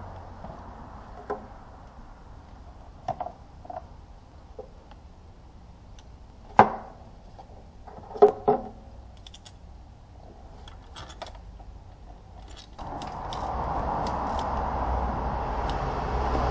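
Metal hand tools clinking and knocking against engine parts as a long socket extension and ratchet are worked: a few scattered knocks, the loudest about six and a half seconds in and a quick group around eight seconds, then lighter ticks. About thirteen seconds in, a steady rushing noise with a low hum sets in.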